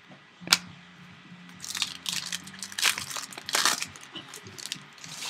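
Wrapper of a trading-card pack being torn open and crinkled, a run of crackly rustles from about a second and a half in, after a single sharp tap about half a second in.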